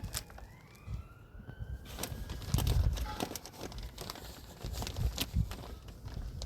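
A siren wails for about the first two seconds, its pitch falling and then rising. Then comes a run of crackling and rustling with a few dull thumps, as compost is scooped and poured into a planter pocket.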